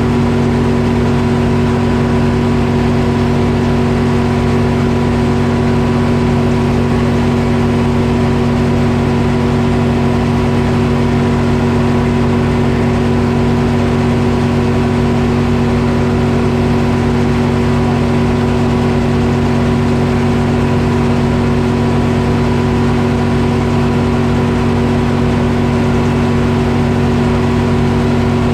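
Detroit Diesel engine powering a Frick sawmill, running steadily at a constant speed with an even drone.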